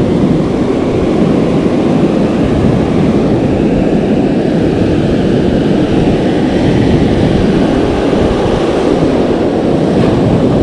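Ocean surf breaking with wind: a loud, steady rushing noise, heaviest in the low end.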